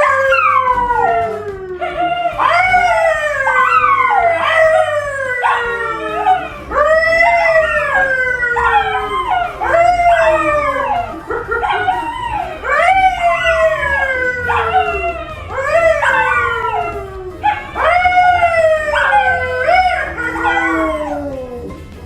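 A dog howling and yowling in a long run of calls, each rising quickly and then sliding down in pitch, close to one a second, with brief pauses about two seconds in and near the end.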